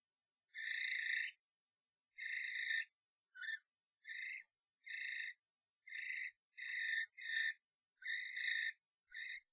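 Common starlings fighting inside a nest box, giving about ten short, harsh, screechy calls one after another, each lasting under a second with brief gaps between.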